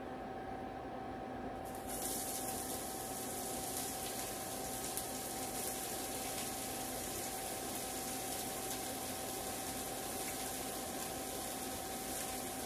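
Diced leeks sizzling in hot olive oil in a copper sauté pan. The sizzle starts suddenly about two seconds in as the leeks slide off the cutting board into the pan, then holds steady.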